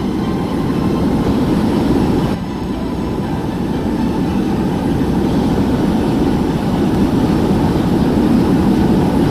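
Loud, steady rumbling roar of a large vehicle or engine. It dips briefly a couple of seconds in and cuts off suddenly at the end.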